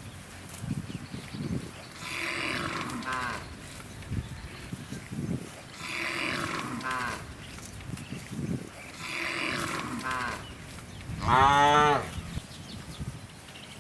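Cows mooing: three calls a few seconds apart, each bending down in pitch at its end, then a louder, longer moo near the end.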